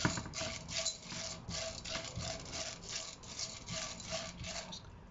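Popcorn kernels being stirred in melted butter in a pan, a spatula scraping them round the pan in quick, regular strokes, about three a second, that stop near the end. The kernels are still unpopped.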